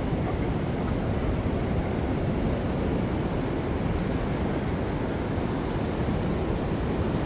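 Wind on the microphone mixed with ocean surf: a steady, low rushing noise.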